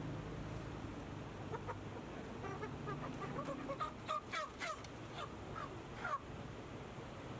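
Chickens in a wire cage clucking in a rapid run of short calls as a hand reaches in and grabs one. A few louder, sharper squawks come midway and once near the end.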